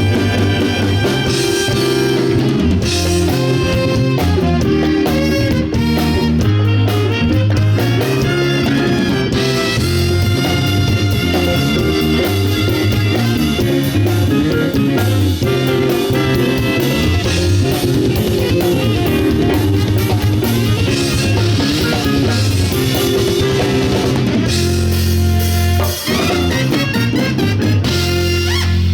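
Wind band with drum kit playing an upbeat arrangement at full volume, brass and woodwinds over a driving bass line and drum beat.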